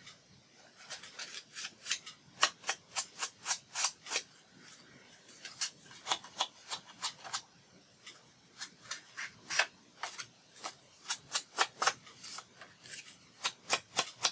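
Foam ink blending tool brushed repeatedly along the edges of a cut paper piece: a run of short scratchy swipes, about three or four a second, pausing briefly twice.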